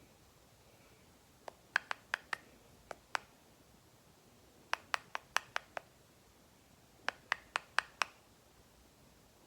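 Green-cheeked conure making tongue clicks in three quick runs of five to seven sharp clicks each, a couple of seconds apart.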